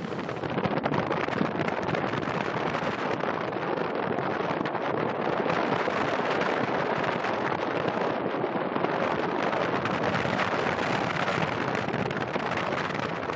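Steady rushing of wind buffeting the microphone mixed with the wash of sea water, with a constant crackle running through it.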